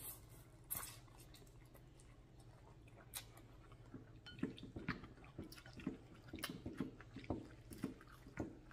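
Close-miked eating sounds: a short slurp of pho rice noodles near the start, then chewing with small wet smacks and clicks through the second half.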